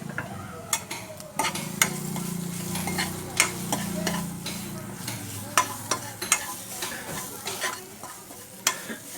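A spoon stirring grated carrot frying in oil in a kadai, with a steady sizzle and frequent sharp clicks of the spoon against the pan. A low hum runs under the first two-thirds.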